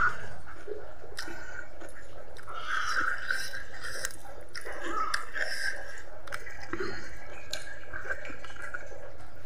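Close-up chewing and wet mouth sounds of a person eating chicken feet and rice by hand, with small scattered clicks.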